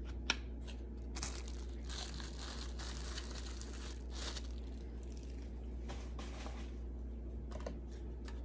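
Packaging being handled, crinkling and tearing in patches, with a few light clicks. A steady low electrical hum runs underneath.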